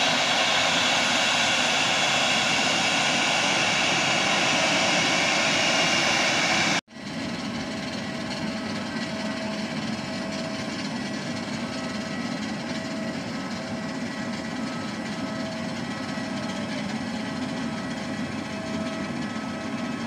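Jet engines of a Citilink Airbus A320 running as the airliner taxis in, a loud steady whine and rush that cuts off abruptly about seven seconds in. A quieter steady engine hum follows, with a faint beep repeating about once a second.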